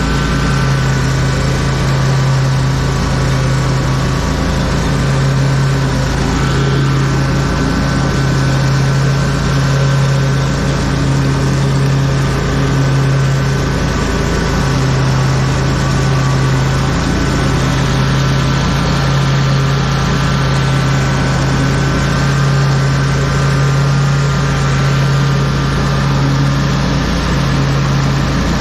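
Lawn mower engine running steadily at constant speed, with a strong even hum and a faint steady whine above it.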